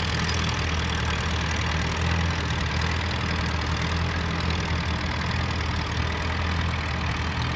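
Tractor engine running steadily while pulling a plough.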